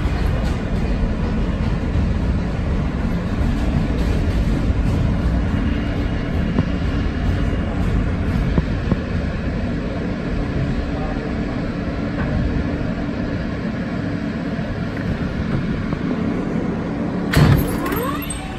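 R160 subway car riding along a station platform, heard from inside the car: a steady rolling rumble with faint motor tones. About seventeen seconds in comes a short, sharp sound with a falling pitch, and then the noise drops off.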